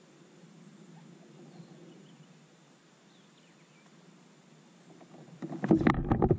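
Quiet outdoor background with a few faint bird chirps, then, near the end, a sudden burst of loud knocks and rattling as a fishing rod is grabbed and handled against a kayak's hull.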